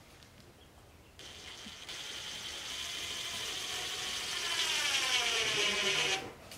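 Cordless drill driving a screw: the motor starts about a second in, runs for about five seconds with its pitch slowly falling as it comes under load, then stops suddenly.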